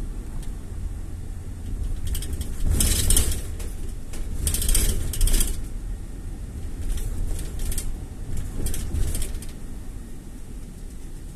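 Road noise from a car driving: a steady low rumble, with four swells of hiss that come and go.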